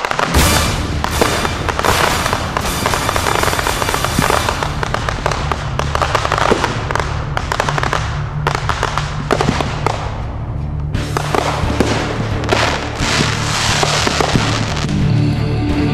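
Fireworks crackling and popping in rapid, dense bursts, with a short lull about ten seconds in before the crackling picks up again. Music with a steady bass plays underneath.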